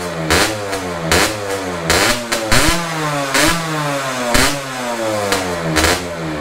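Honda Nova Dash 125 two-stroke single through a DBS expansion-chamber exhaust, revved in about seven quick half-throttle blips. Each blip shoots up sharply with a crackle and then falls back toward idle.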